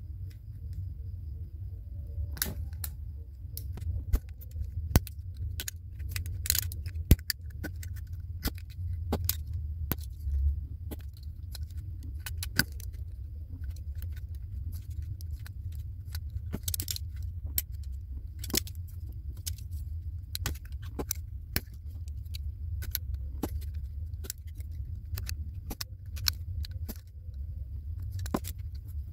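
Utility knife blade cutting and prying through the thin aluminium of a soda can bottom, giving many irregular sharp clicks and scrapes of metal. A steady low hum runs underneath.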